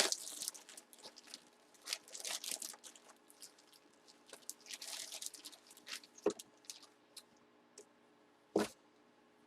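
Plastic bags and packaging crinkling and rustling in short, irregular bursts as jerseys are handled, with two light knocks in the second half.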